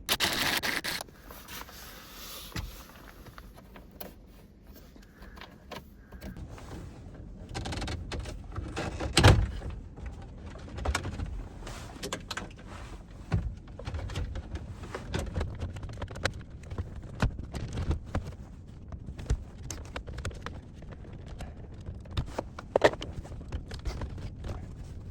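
Plastic dashboard trim panels being unscrewed, pried and handled: irregular clicks, knocks and rattles, with a loud rushing scrape in the first second and a heavy knock about nine seconds in.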